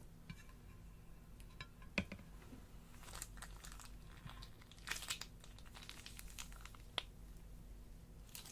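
Crinkling, crackling handling sounds of something crinkly being worked by hand, with two sharp clicks, one about two seconds in and one about seven seconds in.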